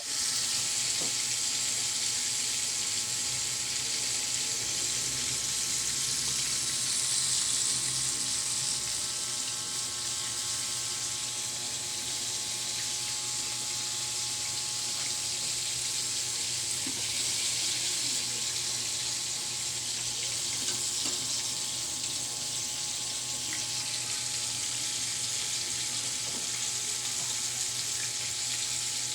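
Chicken frying in hot oil, a steady sizzle throughout with a faint steady hum beneath it.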